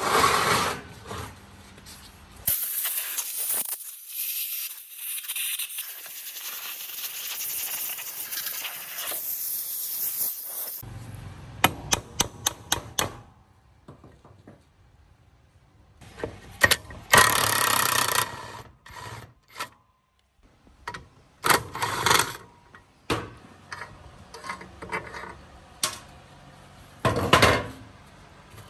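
Hand work on the rusty metal parts of an old chop saw: a long hiss lasting about eight seconds, then a quick run of sharp metal clicks, and several shorter scraping bursts later on.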